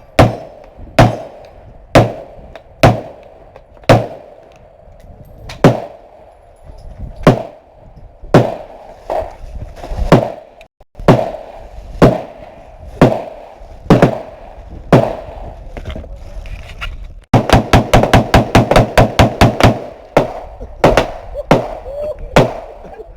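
Gunshots from a semi-automatic AR-15 pistol: single shots about once a second, then a rapid string of about fifteen shots in under three seconds, then a few more single shots.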